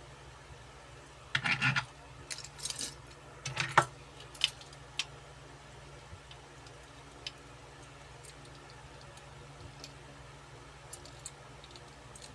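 Diecast metal toy cars clinking and rattling against one another as one is set down and another picked up: a few quick clusters of sharp clicks in the first few seconds, then only faint scattered ticks of handling, over a steady low hum.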